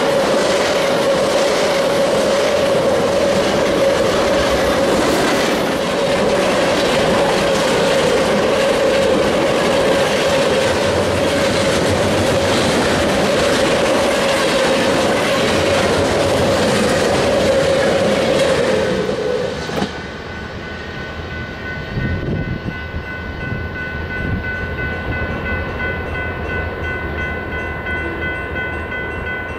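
Freight train of covered hopper cars rolling past close by, wheels clattering over the rails. About twenty seconds in the train clears, the noise drops away, and the grade-crossing bell rings on with a steady tone.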